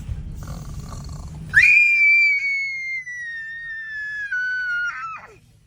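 A person imitating snoring: a rasping snore on the in-breath, then a long high whistle on the out-breath that slowly falls in pitch and ends with a quick drop.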